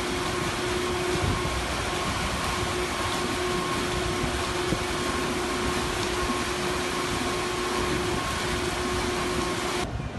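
Steady machinery hum from the docked paddlewheeler Creole Queen: a held low droning note with a fainter higher tone over a rushing noise. It cuts off suddenly near the end.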